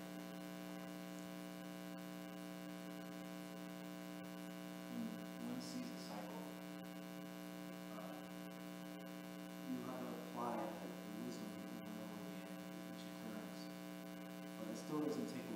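Steady electrical mains hum, with a faint, distant voice speaking now and then, off the microphone.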